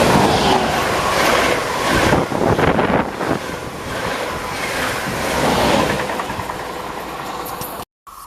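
A train passing close by on the track, with wheels clattering over the rail joints and a steady hum. The sound cuts off suddenly shortly before the end, giving way to a quieter scene.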